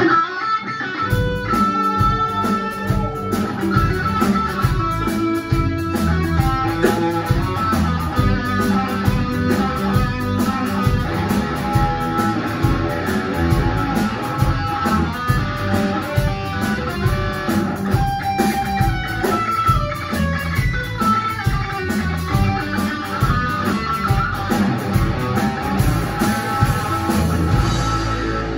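Rock band playing: electric guitar over bass guitar and drums, with a steady beat.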